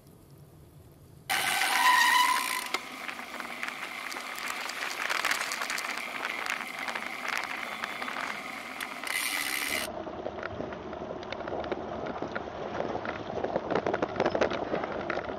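Bicycle riding on wet city streets: tyres hissing on the wet road and the rear freewheel hub ticking, with a brief high-pitched squeal about a second in.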